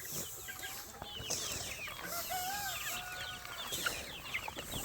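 A flock of backyard chickens clucking and calling, with a chorus of many short, high chirps and a few longer wavering calls about halfway through.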